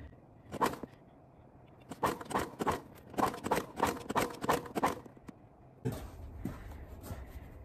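Recoil starter of an SF2600F inverter generator being pulled, cranking the engine in a quick series of strokes, about three a second, without it catching. The engine will not start, and the pulls may be too slow.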